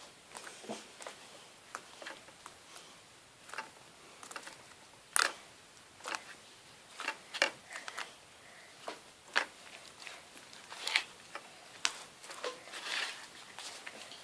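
Scattered light clicks and knocks, a few every second or two, over quiet room tone. The sharpest knock comes about five seconds in.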